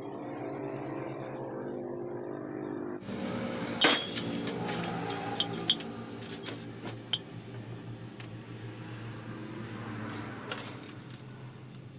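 Sharp metallic clinks several times over a steady hiss that comes in about three seconds in, with a low steady hum of tones underneath.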